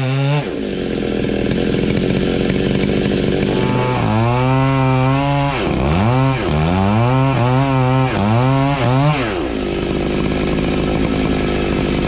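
Chainsaw cutting through a large tree trunk at full throttle, its engine pitch dropping and climbing back several times as the chain works through the wood, with a steady engine drone underneath.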